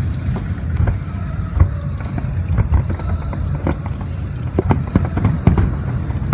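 Fireworks shells bursting in quick succession: a string of sharp bangs over a continuous low rumble of booms.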